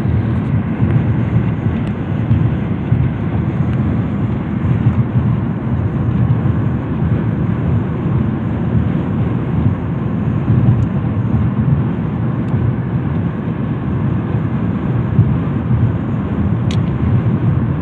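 Steady low rumble of tyre and wind noise heard inside a car driving at highway speed.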